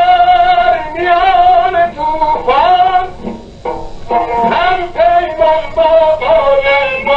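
A recorded song: a voice sings long held notes with a wavering, ornamented pitch over instrumental accompaniment, pausing briefly between phrases.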